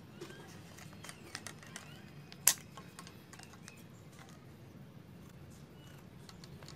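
Scissors cutting a stiff plastic milk-can lid: small scattered clicks and creaks of the blades in the plastic, with a sharp snap about two and a half seconds in and another near the end.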